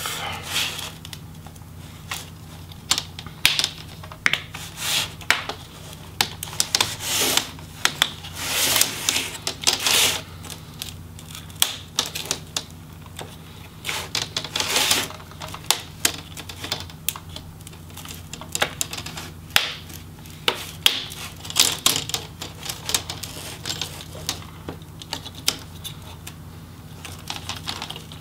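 Plastic front bezel of an HP Pavilion 17 laptop display being prised off by hand: a long run of sharp clicks and snaps as its clips pop free, with a few longer scrapes of plastic on plastic.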